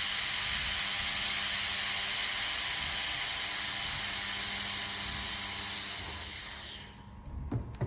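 Steady hiss of a 1.5 kW handheld fiber laser welding head running a weld on 3 mm stainless steel with argon shielding gas flowing. The hiss fades out about six and a half seconds in, followed by a couple of faint clicks.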